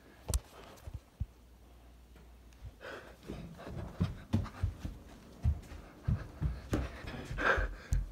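Panting breaths over irregular low thumps of running feet and a jostled phone. The first few seconds are quieter, with a couple of sharp knocks, and the thumps and breaths grow busier and louder toward the end.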